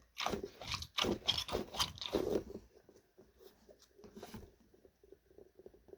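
Crunching and scraping handling noises from a fidget toy, dense for about the first two and a half seconds, then fainter scattered crackles.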